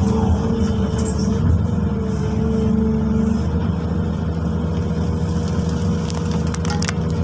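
XCMG 215C excavator's diesel engine and hydraulics working under load, heard from inside the cab; the engine note eases a little about three and a half seconds in.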